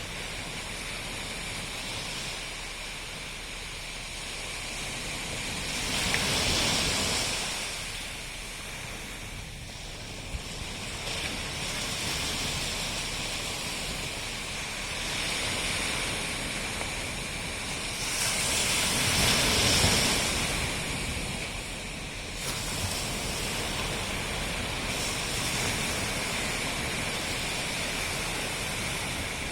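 Ocean waves breaking and washing on the shore, a steady rushing with two bigger swells, one about six seconds in and a louder one around twenty seconds.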